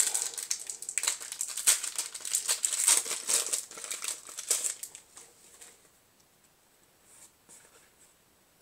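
Foil wrapper of a Yu-Gi-Oh! booster pack crinkling and tearing as it is ripped open by hand. The crinkling stops about five seconds in, leaving faint rustles of the cards being handled.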